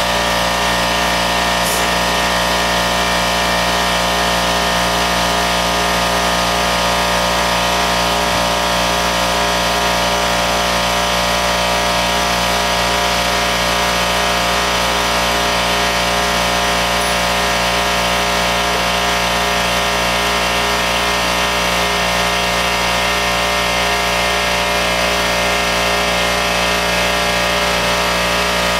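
A motor hums steadily and loudly, holding an unchanging drone of several fixed tones with no breaks or changes in pitch.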